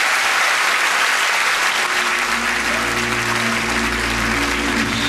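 Audience applauding; about two seconds in, music comes in under the applause with held low bass notes and sustained chords.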